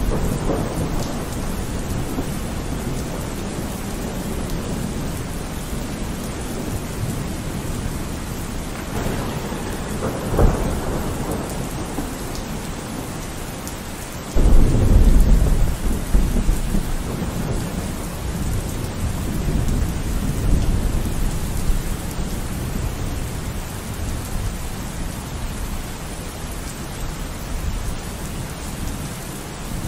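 Cyclone-force wind gusting through palm trees with rain, the gusts buffeting the microphone with a low rumble. A strong gust hits suddenly about halfway through and stays heavy for several seconds.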